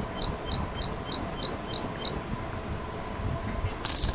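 A small bird calling, a quick run of about eight rising chirps. Near the end a much louder, high ringing with rattling strokes cuts in.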